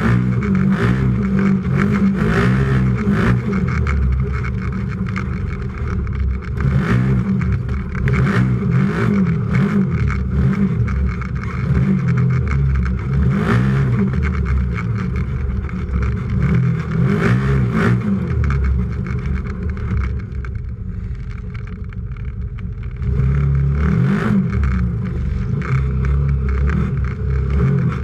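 Racing UTV engine heard from inside the cab, revving up and easing off again and again as the throttle is worked, with a quieter stretch of lifting off about two-thirds of the way through. Frequent short knocks and rattles run through it.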